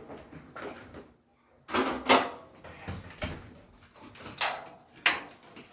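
A series of sharp knocks and clatters from handling the Samsung dryer's sheet-metal cabinet parts and screws during disassembly. The loudest is a pair of knocks about two seconds in, with single clatters after.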